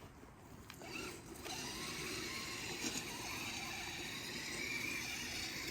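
Electric motor and gearbox of a radio-controlled Tamiya Blizzard tracked snow vehicle running, a steady mechanical whine that comes in about a second in and holds.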